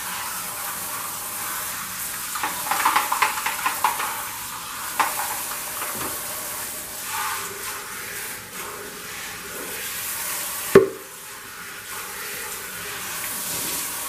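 Kitchen faucet running steadily into the sink while the plastic dirty-water tank parts of a Hoover FloorMate Edge floor cleaner are rinsed under it. Plastic parts clatter and knock against the sink now and then, with one sharp knock about three-quarters of the way through.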